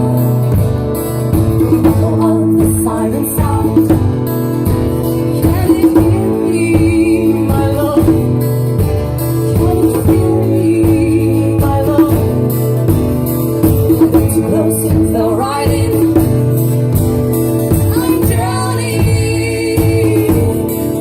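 Live band music: singing over strummed guitar, with a steady drum beat.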